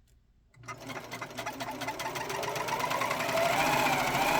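White Power Lock serger starting about half a second in and speeding up to a steady fast run: a rapid stitching clatter with a motor whine, run to check that it is freshly threaded correctly.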